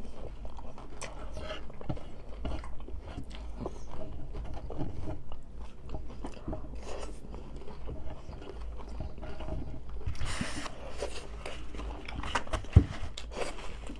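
Close-up eating of crunchy tacos: irregular biting, chewing and crunching. A single sharp click about thirteen seconds in is the loudest sound.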